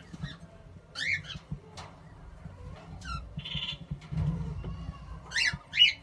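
Kakariki nestlings calling: a handful of short, high squeaky calls that rise and fall in pitch, one buzzy call past halfway, and the two loudest calls close together near the end.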